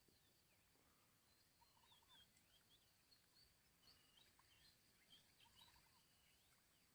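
Faint birds calling outdoors, with varied chirps and whistles and a short run of four quick notes about every four seconds, over a steady high thin tone.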